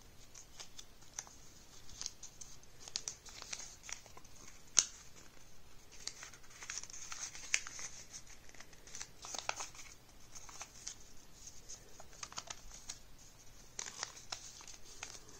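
Origami paper rustling and crinkling as fingers fold and crease it by hand: irregular short crackles, with one sharper snap about five seconds in.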